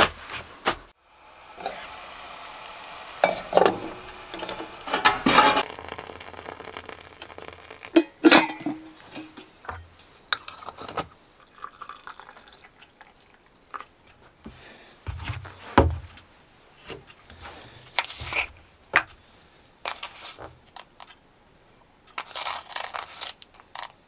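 Pots, dishes and utensils clinking and knocking as they are handled, with a few seconds of steady pouring water near the start.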